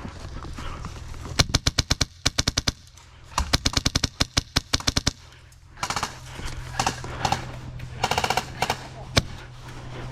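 Airsoft guns firing. Two runs of rapid, evenly spaced shots a second and a half long come in the first half, then scattered shots and a short, faster burst with a single shot just after it near the end.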